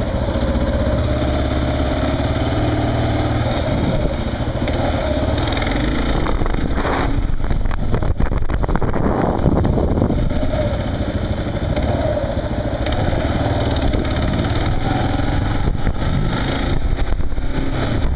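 Kawasaki KLR motorcycle's single-cylinder engine running, its pitch rising and falling as engine speed changes, with a rougher, noisier stretch about seven to ten seconds in.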